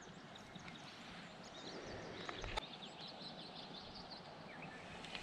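Small birds chirping in quick, high notes again and again over a faint, steady rush of river water, with one sharp click about two and a half seconds in.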